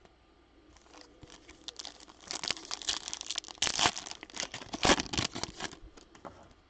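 Foil wrapper of a Topps Chrome Update baseball card pack being torn open and crinkled by hand: a quick run of crackling rustles that builds about two seconds in and stops shortly before the end.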